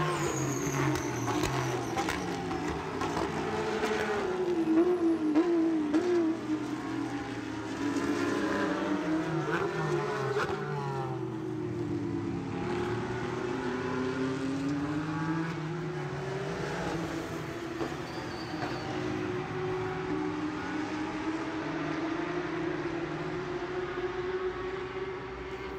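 An engine running, its pitch sweeping up and down again and again, with a quick wavering about four to six seconds in.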